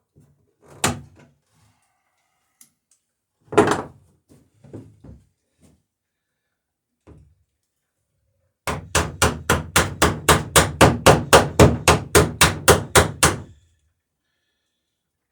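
A hammer peening over a rivet fastening a wooden dory's sheer strake: two single knocks, then, about nine seconds in, a quick even run of about twenty-five light blows, five a second, lasting some five seconds.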